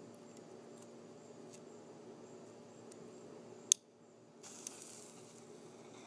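A bottle rocket fired from a homemade launcher: one sharp bang about two-thirds of the way in, followed by a hissing rush. The bang is the rocket exploding only a few feet away, loud enough to hurt the ear.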